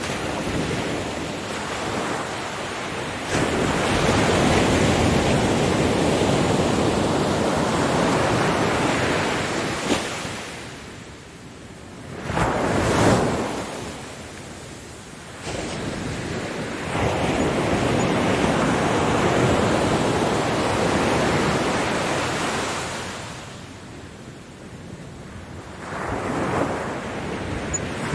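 Ocean waves breaking on a beach and washing in, in long surges that swell and fade, with quieter lulls between them.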